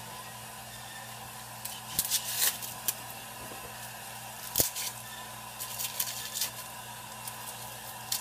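Kitchen handling noises: scattered rustles and crinkles, with a sharper knock about halfway through, over a steady low hum.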